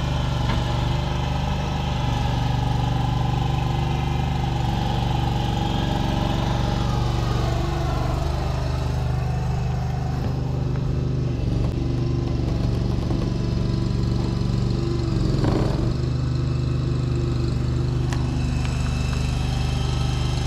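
Engine of the machine moving the kennel running steadily, its pitch shifting slightly as it works, with one brief knock about fifteen seconds in.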